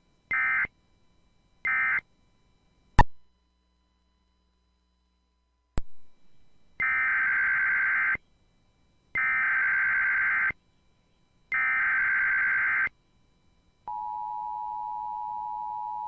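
Emergency Alert System tones: the last two short end-of-message data bursts of one alert, a click, a few seconds of silence, then three longer warbling SAME header bursts announcing the next alert. About 14 s in, the steady two-tone attention signal starts.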